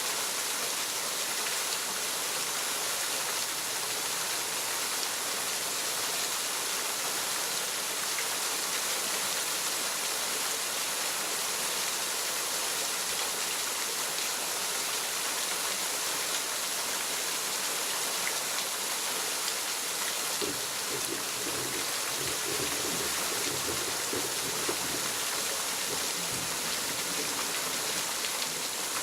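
Waterfall: a steady, even rush of falling water. A faint low pitched sound joins in about two-thirds of the way through.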